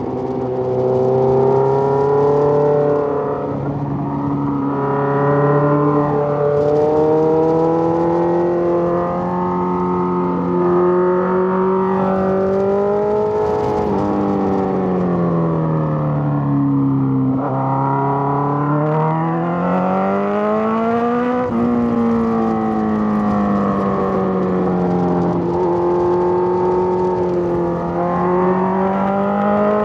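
Suzuki GSX-R1000 inline-four engine running on the road. Its pitch rises and falls as the throttle is rolled on and off, dropping steadily about halfway through and then climbing back up.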